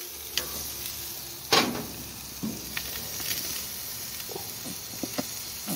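Pork chops sizzling on a gas grill: a steady hiss, with a few light clicks of metal tongs against the grate and one short, louder burst about a second and a half in.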